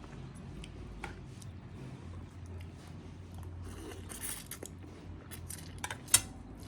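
Eating sounds: small clicks, a short rustle and crunches of food being handled and bitten, with a sharp click about six seconds in, over a steady low hum.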